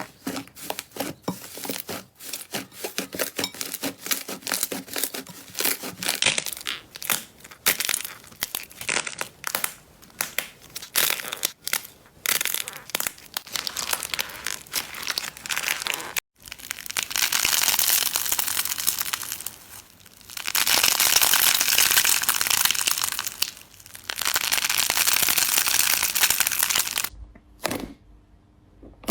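Slime squeezed and poked by hand close to the microphone: dense quick clicks and crackles. Partway through the sound changes to three long stretches of steady crunching, each a few seconds.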